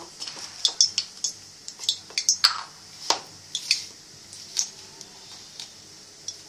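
A hand squeezing and tossing chopped onion through dry gram flour in a ceramic bowl, the crumbly mix still without water. It gives irregular light clicks and clinks against the bowl, frequent at first and sparser after about four seconds.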